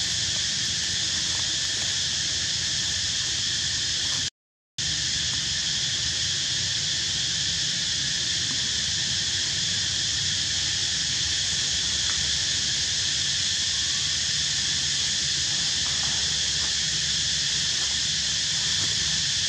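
Steady outdoor ambience: an unbroken high hiss with a low rumble beneath it. The sound cuts out completely for about half a second some four seconds in.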